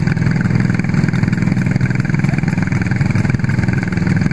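Racing kart's four-stroke F400 engine idling steadily while the kart stands still, with other karts' engines running around it.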